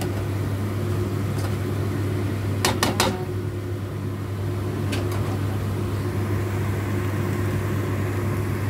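A spatula clinking sharply against a wok three times in quick succession about three seconds in, and once more, fainter, about two seconds later, over a steady low machine hum.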